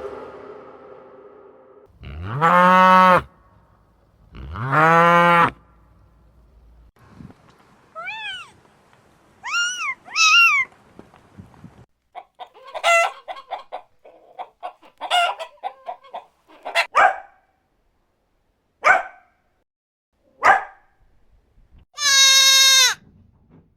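A run of different farm animal calls one after another: two long, low calls about two and four seconds in, three higher arching calls, a stretch of rapid clucking, a few short sharp calls, and one long pitched call near the end.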